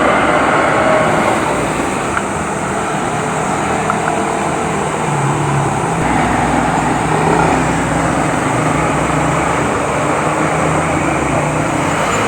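Steady road noise and engine hum inside a moving car's cabin.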